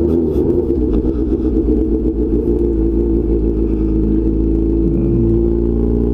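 Honda CB1000 motorcycle's inline-four engine running at a steady cruise while riding, with the revs easing briefly about five seconds in.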